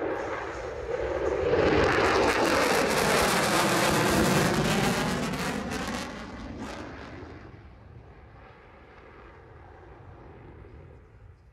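Jet aircraft flying past. The noise swells over about two seconds, stays loud for a few seconds with a sweeping, phasing quality, then fades away.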